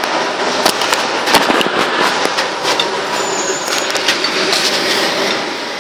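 Handling noise from a phone camera: rubbing and repeated knocks of the microphone against clothing, over the steady running noise of a city bus.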